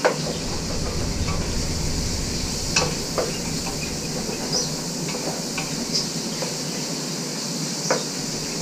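Deboned snowshoe hare meat sizzling steadily as it sears in hot olive oil in a stainless steel pot. A few sharp clinks and scrapes of the stirring utensil against the pot come through the sizzle.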